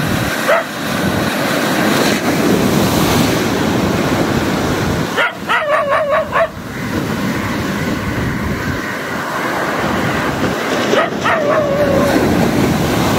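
Sea surf washing and breaking over rocks, a steady rushing noise. Twice, about five seconds in and again near the end, a wavering, whining high call sounds over it.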